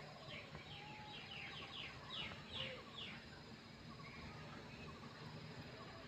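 Birds chirping: a quick run of about ten short, falling chirps in the first half, the loudest two around the middle, over fainter repeated notes from another bird.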